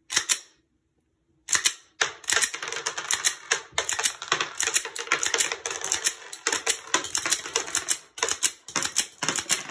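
Glock 43X pistol's slide being racked by hand again and again, cycling snap caps through a Shield Arms 15-round magazine. It makes a fast, uneven run of sharp metallic clacks as each dummy round is chambered and ejected, starting about a second and a half in.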